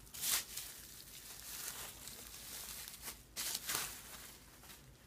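Packaging being handled and opened: rustling and crinkling, with short, sharp bursts of tearing or ripping near the start and again about three and a half seconds in.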